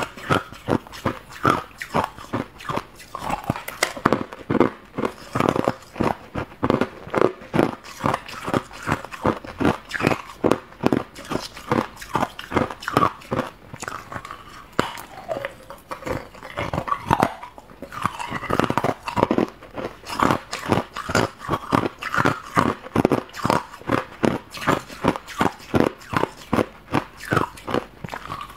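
Hard clear ice being bitten and chewed close to a clip-on microphone: a steady run of loud, sharp crunches, about two or three a second.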